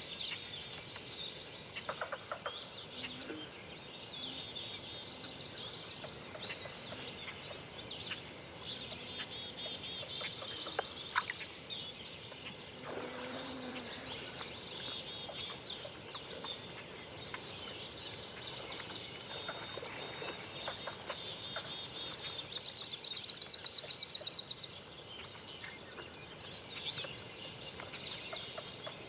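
A forest dawn chorus: several songbirds singing at once in overlapping high chirps and trills. A loud, rapid trill stands out for a couple of seconds about three-quarters of the way through.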